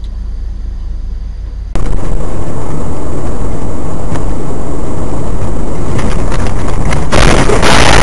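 Dash-cam recording of vehicle noise: a low steady hum, then, about two seconds in, a sudden jump to very loud rushing noise. The noise grows harsher about seven seconds in.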